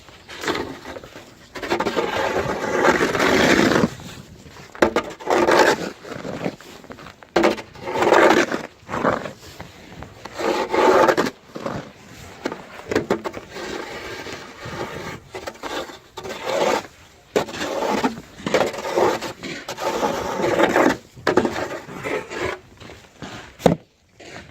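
A snow-removal tool scraping and pushing through snow in repeated strokes, each a second or two long, with short pauses between.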